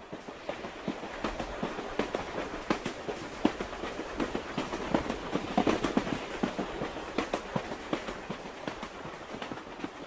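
Electric commuter train running along the track, heard from inside the carriage: a steady rolling rumble with many quick, irregular clicks and rattles of the wheels and carriage.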